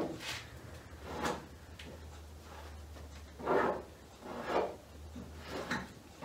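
Plastic spreader scraping and folding body filler on a plastic mixing board as the filler is mixed: a series of short scrapes, roughly one a second.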